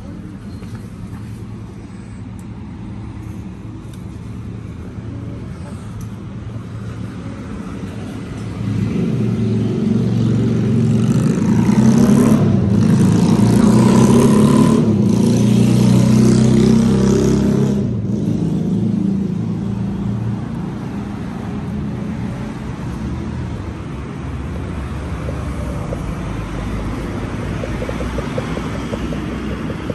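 A motor vehicle passing on the street: its engine grows louder, peaks about halfway through and fades away again, over a steady urban background hum.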